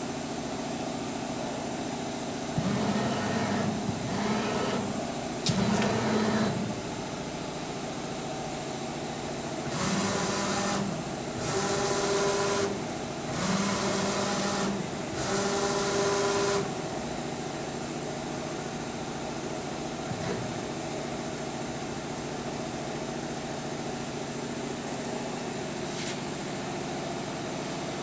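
Clausing Metosa CNC flat-bed lathe running with a steady hum, broken by short whirring machine moves about a second long each: four in quick succession a few seconds in, and four more between about 10 and 16 seconds.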